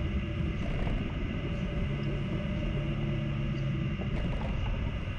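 Steady low rumble of vehicle and road noise, with a faint engine hum standing out for a couple of seconds in the middle.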